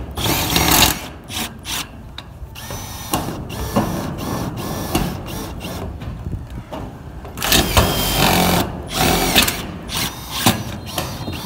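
Milwaukee M18 cordless drill driving screws through corrugated metal roofing sheet, in several short bursts of motor whine with stops between them and one longer, quieter stretch in the middle.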